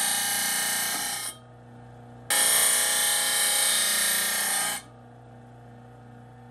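Disc sander grinding the painted end of a steel tube to a 45-degree bevel, throwing sparks: two passes of loud grinding, the first ending about a second in and the second lasting about two and a half seconds. Between and after them the sander's motor runs free, much quieter.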